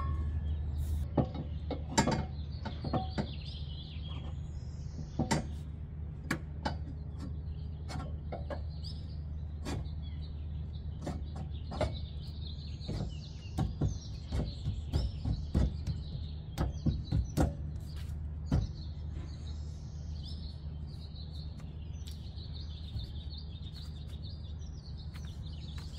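A steel trailer-hitch beam clanks and knocks against the car's rear frame brackets as it is lifted and test-fitted: a string of sharp metal knocks, busiest around the middle. Birds chirp throughout over a steady low hum.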